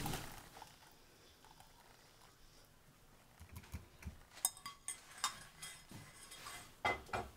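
Light clicks and knocks of kitchen utensils, likely a strainer and cup, as boiled thyme tea is strained. About a dozen scattered taps come in the second half, the sharpest a few seconds in and again near the end.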